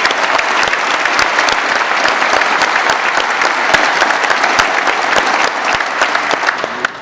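A large audience applauding, a dense mass of many hands clapping that dies away near the end.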